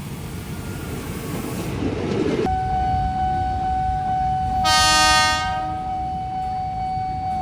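KRL Commuter Line electric train sounding one horn blast about a second long, midway through. Rumbling train noise fills the first couple of seconds, then a steady high whine runs under the horn.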